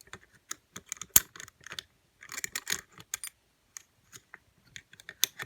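Steel lock-picking tools clicking and scraping in a lever lock: a tension tool and lifter worked against the levers. Many small separate clicks, a sharp one about a second in, and a short burst of scraping and rattling a little after two seconds.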